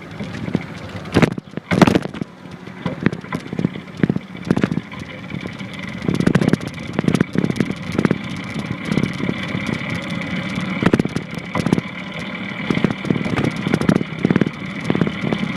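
Longboard skateboard rolling over pavement, its wheels giving a steady rumble, with repeated knocks as the land paddle is planted on the ground to push.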